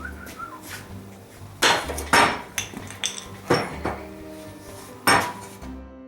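Steel parts of a blacksmith's leg vise clanking and ringing as it is taken apart and the pieces are set down: about seven sharp metal knocks, the loudest about two seconds in.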